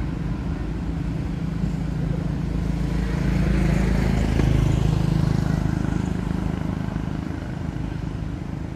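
Engine of a road vehicle passing, a steady low hum that grows louder about three seconds in and fades again after about six seconds, over the continuous hum of traffic.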